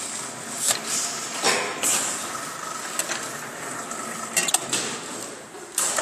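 Roll forming machine for solar water heater frame brackets running, a metal strip passing through its forming rollers: a steady mechanical noise broken by irregular metallic knocks.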